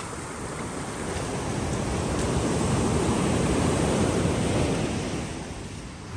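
Sea surf washing onto the shore: one wave's rush swells over a couple of seconds and then dies away.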